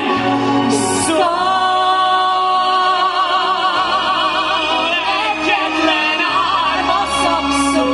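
A man and a woman singing a musical-theatre duet into microphones over instrumental accompaniment, their held notes in wide vibrato.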